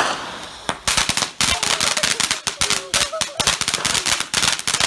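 A lit consumer firework starting to go off: after a short hiss, a rapid run of sharp cracks and bangs begins about a second in, several a second, like firecrackers.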